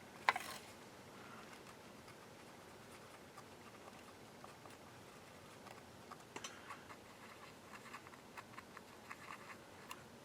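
Faint light scratching and ticking as flux residue is scrubbed off a label maker's circuit board, with one sharp click just after the start and a run of quick, uneven scratches from about six seconds in.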